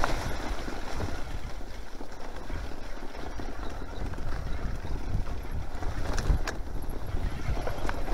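Mountain bike riding fast down grassy singletrack: wind rushing over the camera microphone and the rumble and rattle of the bike over bumpy ground, with a couple of sharp knocks about six seconds in.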